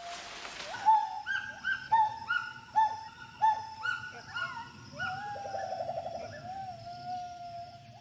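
Gibbon calling: a run of short hoots that each rise and fall, about two a second, then a long held note with a quick warble in it.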